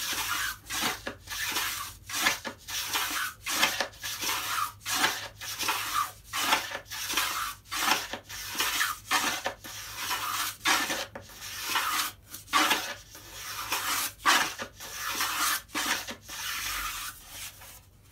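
Small hand plane shaving a steep bevel along the edge of a pine board, in quick back-and-forth strokes of about two a second. The strokes stop shortly before the end.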